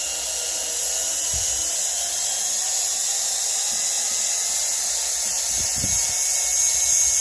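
Power drill running steadily in reverse with a high whine, backing out the broken shank of a stripped screw whose head was drilled off.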